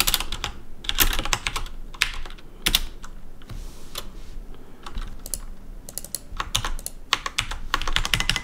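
Typing on a computer keyboard, quick runs of keystrokes with a lull of about two seconds a little before the middle.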